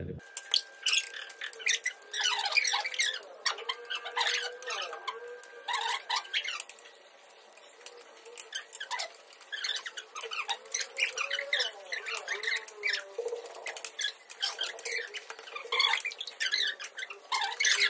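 High-pitched, squeaky chattering like voices played back fast, with many short clicks; it dips quieter for a second or two around the middle.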